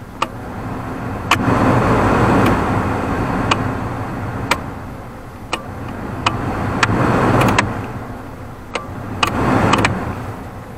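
Ford Explorer's heater blower fan blowing air through the dash vents, swelling and dropping back three times as the fan-speed knob is clicked through its settings, with sharp clicks from the knob. With a new blower motor resistor plugged in, the fan runs on the lower speeds again instead of only on high.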